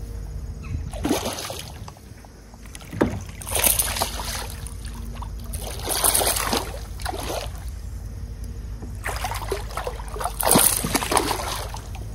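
Water splashing in short bursts, about eight times, as a hooked smallmouth bass thrashes at the surface beside a kayak.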